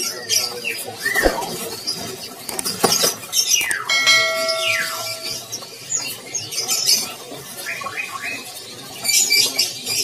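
Many small caged birds chirping and calling over one another, with short chirps and falling call notes. About four seconds in, a clear ringing tone is held for over a second.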